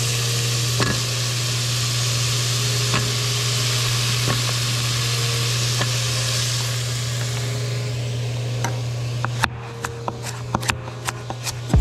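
Vegetables sizzling in a stainless steel pot as a wooden spoon stirs them, with a few light taps of the spoon. About 9.5 s in, this gives way to a knife chopping carrots on a wooden cutting board: a quick run of sharp chops. A steady low hum runs underneath.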